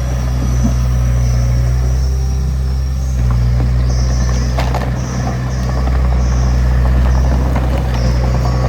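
Diesel engine of a Komatsu D20P small crawler bulldozer running steadily under work, with a few metallic knocks from the machine.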